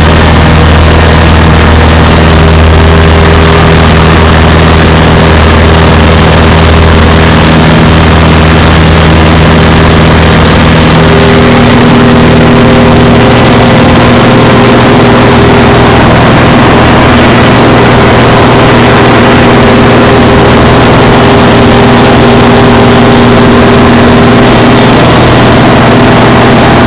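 Cessna 180 floatplane's six-cylinder piston engine and propeller running steadily and very loud on take-off, the engine note shifting slightly in pitch about 8 and 11 seconds in.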